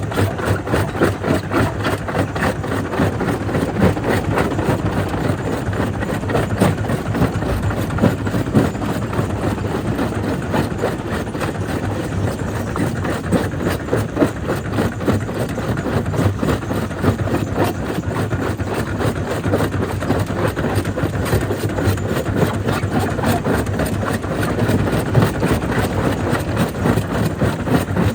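Jaw crusher running and crushing stone: a continuous machine rumble under a dense, irregular clatter of rock knocking and breaking in the jaws.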